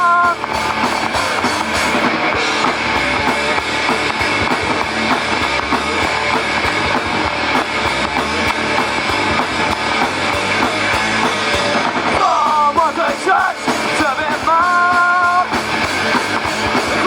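Live rock band playing with drums and guitars; a singer's voice comes in for a few seconds about twelve seconds in.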